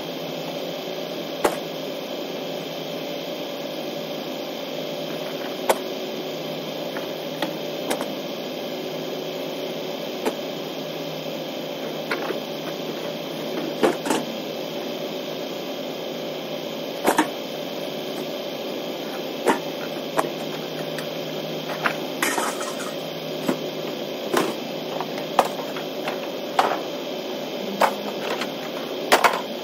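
Steady hum heard from inside a parked vehicle's cab, with sharp clanks of scrap being thrown off a trailer every second or few, coming more often in the second half.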